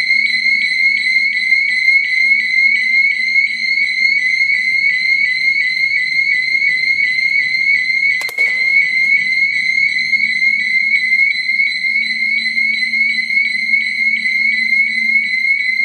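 Electronic fire alarm sounder going off during a system test: a loud, high-pitched tone pulsing rapidly and evenly. A single sharp click about halfway through.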